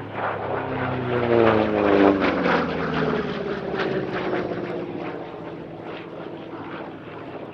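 Republic P-47 Thunderbolt's Pratt & Whitney R-2800 radial engine on a fast pass. It is loudest about two seconds in, drops in pitch as it goes by, then fades away.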